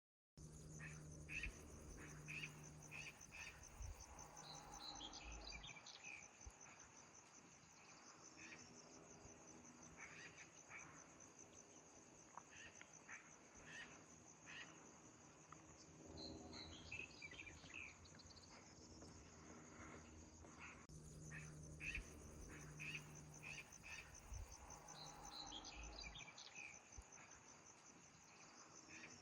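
Faint forest ambience of insects chirping in a steady, high, rapidly pulsing trill. Now and then a bird gives a short run of falling chirps.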